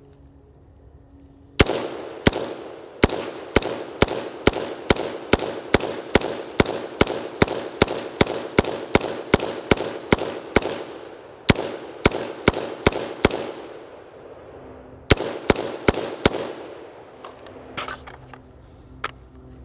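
BCM AR-15 in 5.56 firing rapid semi-automatic shots, about two to three a second, around thirty in all, with two short pauses in the string. The rifle is running without cleaning or lubrication. A few faint clicks of handling near the end.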